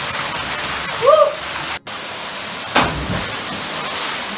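Rushing water of a waterfall, a steady hiss. About a second in comes a short rising-and-falling shout, and just under three seconds in a short loud burst.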